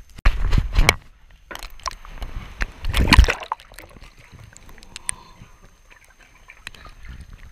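Water in an ice-fishing hole splashing and sloshing as a camera is plunged through it, with two loud surges, one just after the start and one about three seconds in. After that the sound is quieter and muffled under the water, with scattered clicks.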